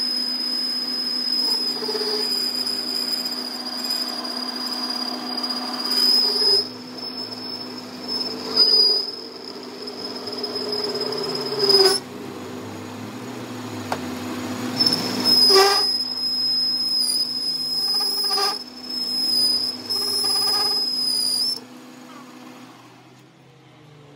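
Metal lathe turning a steel shaft while a carbide tool cuts a groove, the cut giving a steady high-pitched squeal that breaks off and comes back several times over the machine's hum, with a few sharp knocks. Near the end the cutting stops and the lathe runs down.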